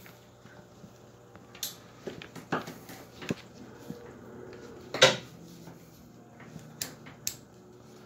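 Scattered clicks and knocks of equipment being handled, about six in all, the loudest about five seconds in, over a faint steady hum.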